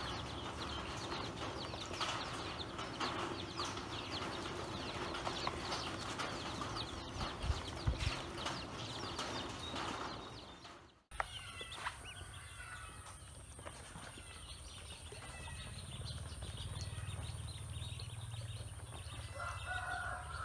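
A brood of ducklings peeping busily while they feed, a dense chatter of many high calls. About halfway through the sound drops out suddenly. After that come sparser peeps over a steady high-pitched tone.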